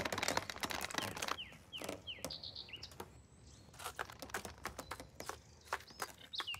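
Foley for a small animal creeping along a thin twig: a scatter of light clicks and scratches. A few short high chirps that fall in pitch come about one and a half to two seconds in and again near the end.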